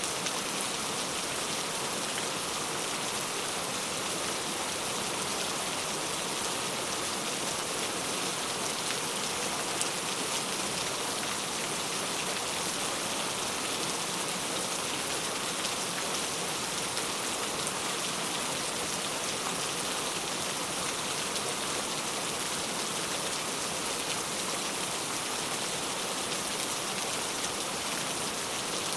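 Steady rain falling, an even hiss of many raindrops on a surface with small scattered drop ticks.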